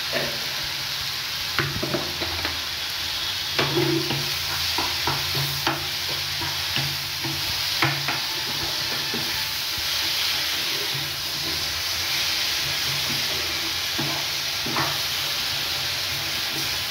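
Mashed raw jackfruit with onion and tomato sizzling in a non-stick frying pan, with a spatula scraping and knocking against the pan as it is stirred: a steady frying hiss broken by frequent short scrapes.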